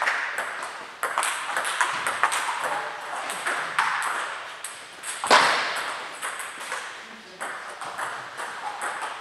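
Celluloid-type table tennis balls clicking on tables and bats: strokes and bounces from a rally and from play at neighbouring tables, with voices behind. One louder sharp sound stands out about five seconds in.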